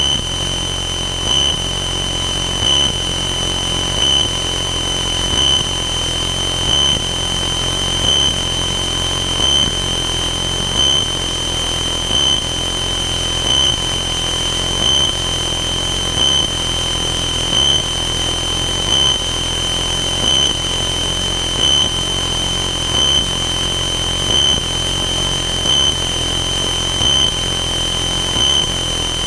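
Cessna 162 Skycatcher's Continental O-200 four-cylinder engine and propeller droning steadily in flight, heard inside the cabin. A steady high-pitched whine runs over it, swelling slightly about every second and a half.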